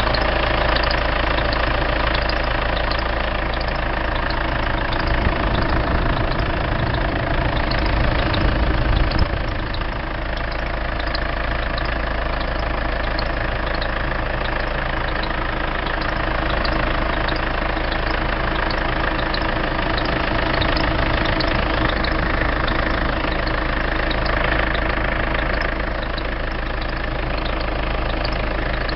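Mazda BT-50 diesel engine idling, with a short high squeak repeating at a steady rhythm from the front of the engine. The cause of the squeak is unknown to the owner.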